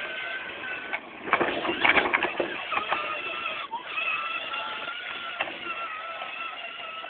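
Whine of a children's battery-powered ride-on toy car's electric motor as it drives along, with a loud crackling burst about a second in.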